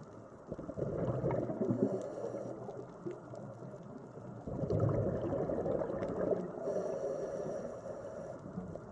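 Underwater recording of bubbles: a low bubbling rumble of water that swells twice, a few seconds apart, with faint crackling throughout.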